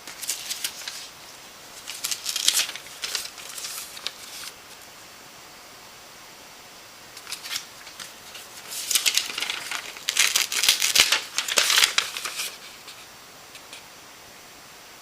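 Bursts of rustling and crinkling handling noise: a few short bursts in the first few seconds, then a longer, louder stretch in the middle before it stops.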